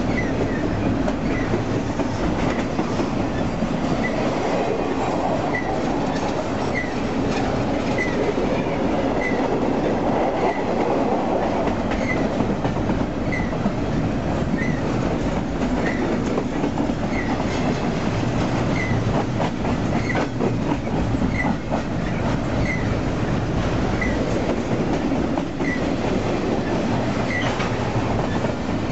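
Double-stack container train's well cars rolling steadily past at close range: a continuous rumble of steel wheels on rail with occasional sharp clanks. A short high chirp repeats evenly about every second and a third.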